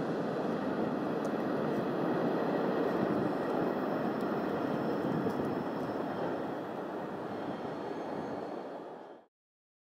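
Rumble of a train that has just run through the station, slowly fading as it draws away, with a few faint ticks; it cuts off suddenly near the end.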